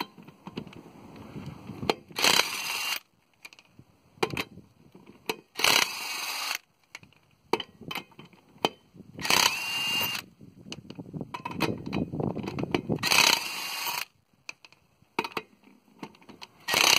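Harbor Freight Earthquake XT half-inch 20-volt cordless impact wrench, run in reverse on steel-wheel lug nuts torqued to 100 foot-pounds. It gives five short bursts of hammering, each under a second and about three and a half seconds apart, with quieter motor running between them as the nuts come off.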